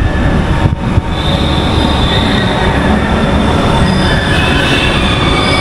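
Metro train wheels squealing on the elevated track overhead: several high, shifting metallic squeal tones that start about a second in, over a steady low rumble of road and engine noise from the moving two-wheeler.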